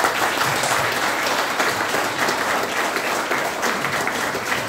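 Audience applauding: many people clapping, breaking out suddenly and continuing steadily.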